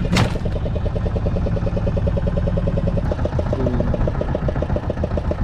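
Fishing boat's engine running steadily with a fast, even pulse over a low rumble. There is a single sharp knock just after the start.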